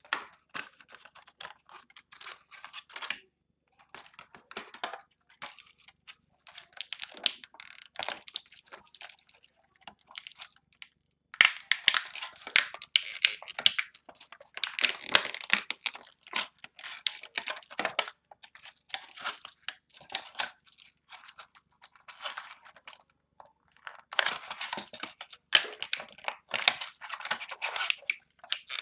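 Plastic being handled and worked apart by hand: irregular crinkling and rustling with sharp clicks, louder and busier from about a third of the way in. This is likely a plastic Beyblade's driver being worked loose from the rest of the top.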